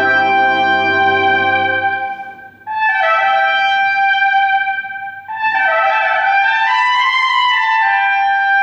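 Brass band playing sustained chords: a full chord with the low brass dropping out about two seconds in, a brief near-pause, then a high held note with the band's chords swelling and shifting beneath it.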